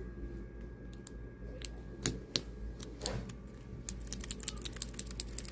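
Mechanical keyboard switches being pressed: a few separate clicks, then a quick run of keypresses starting about four seconds in.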